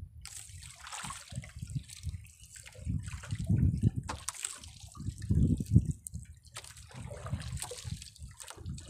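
Sea water sloshing and lapping against the hull of a small fishing boat, in irregular surges.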